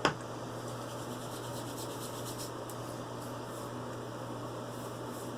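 A sharp click right at the start, then a steady low hum with an even hiss and a few faint light ticks.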